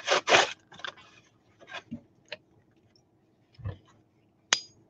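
Knife cutting open a cardboard trading-card hanger box: a couple of rasping cuts at the start, then scattered scrapes and clicks of the box and pack being handled, with one sharp click near the end.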